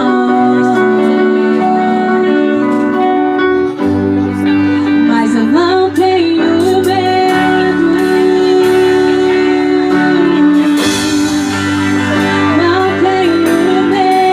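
Worship band music: a sung melody over sustained chords, with guitar and a bass line that changes note every second or two.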